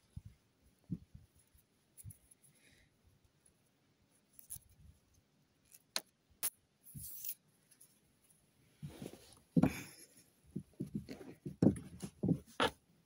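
Sparse clicks, then a busier run of clicking and rattling in the last few seconds, as a hand works a plastic cable tie around a car's loose underbody heat shield to refasten it where its retaining pin has come out.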